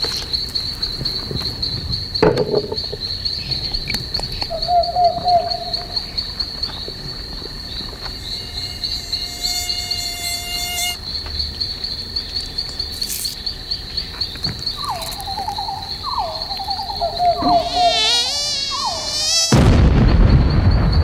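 A steady, high-pitched insect trill like chirping crickets, with short wavering buzzy tones over it now and then. About nineteen and a half seconds in, a loud rushing noise cuts in.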